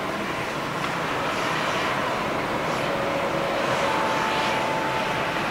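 Airbus A320's CFM56 turbofan engines running at low power as the jet rolls slowly along the runway: a steady rush with faint, thin whining tones.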